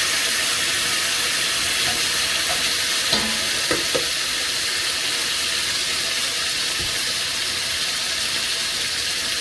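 Beef pieces and onions sizzling steadily in a hot heavy-duty pan, with a few light knocks about three to four seconds in.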